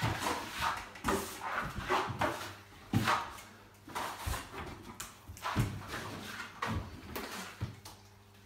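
Steel plastering trowels sweeping and scraping over a wall as wet gypsum multi-finish plaster is spread on: irregular strokes, a few each second, with short pauses between.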